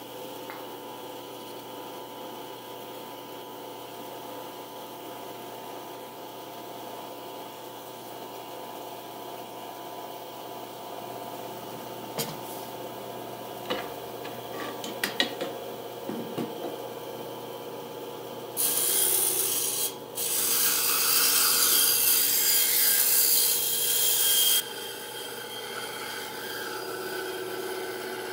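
SK11 SWB-300W benchtop band saw running with a steady motor hum, with a few clicks and knocks as the wood is handled. About two-thirds of the way in, the blade cuts into a wooden block, much louder for about six seconds, with a brief break early in the cut. It then drops back to the running hum.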